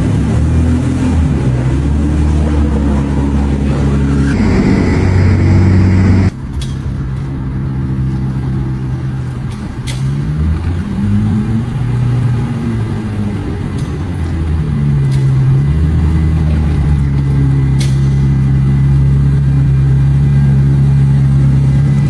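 Aston Martin's engine running and revving, its pitch rising and falling; the sound cuts off abruptly about six seconds in and picks up again, settling into a steadier, slightly louder note near the end.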